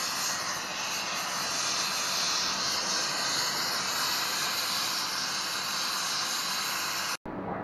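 Argon (TIG) welding arc on an aluminium cylinder head, a steady hiss that stops suddenly about seven seconds in. The arc is building up corrosion-pitted spots on the head's gasket face.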